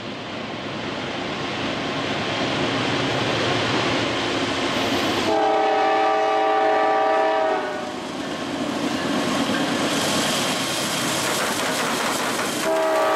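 Norfolk Southern diesel freight train approaching, its rumble growing louder as the locomotives draw near. The lead locomotive's air horn sounds a chord of several notes for about two and a half seconds, about five seconds in, and starts again near the end.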